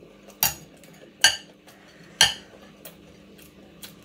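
Metal cutlery clinking against a dish: three sharp clinks about a second apart, then a couple of fainter taps near the end.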